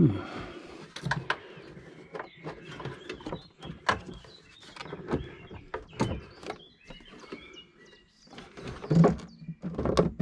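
Hard plastic parts of a Toyota GR Yaris air intake being handled and fitted: an irregular series of clicks, knocks and rattles as the air box is shifted and the intake duct pushed into place beneath it.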